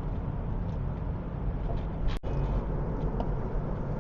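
Steady low rumble of a moving car's road and engine noise heard inside the cabin. About two seconds in there is a brief click and a momentary cut-out of the sound.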